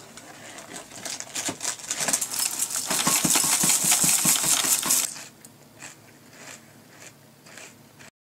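Dry Cheerios poured from the box into a bowl: a dense rattle of small pieces hitting that builds up over the first few seconds, then thins out about five seconds in to a few scattered clicks.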